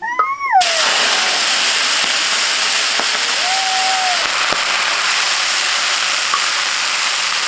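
Food tipped into hot oil in a cooking pot, starting with a sudden loud sizzle about half a second in and then frying steadily.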